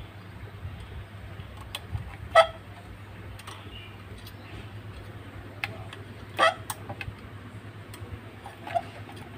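Small clicks and taps of hands fitting bent wire pieces and a clip onto a homemade cat trap's frame, over a steady low hum. Two louder short sharp sounds stand out, about two and a half and six and a half seconds in.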